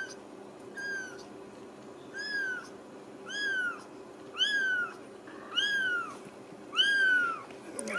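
Young Ragdoll kitten mewing: a high, arched cry that rises and falls, repeated about once a second and growing louder as it goes.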